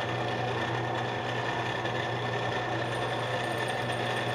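Metal lathe running steadily in low gear, at about 235 RPM. Its motor and gearing give an even low hum with a high whine above it.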